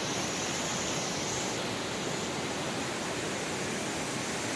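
Steady rushing of foaming waterfalls, an even, unbroken wash of falling water.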